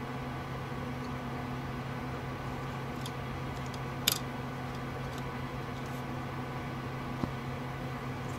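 Steady hum and whir of computer cooling fans running, with a sharp click about four seconds in and a fainter one about seven seconds in.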